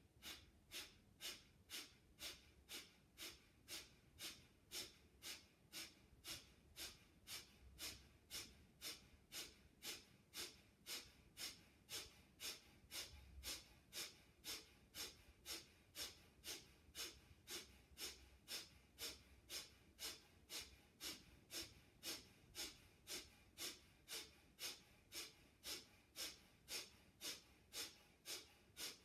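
A woman's rapid, forceful exhalations through the nose, pumped by the diaphragm in a yoga breathing exercise: short sharp breaths at an even pace of about two a second.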